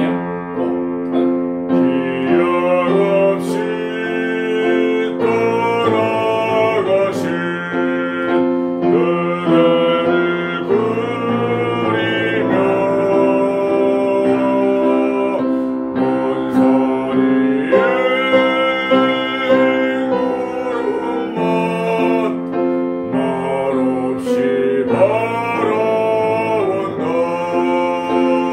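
A man singing a Korean art song in classical style over piano accompaniment, with long held notes that waver and slide between pitches.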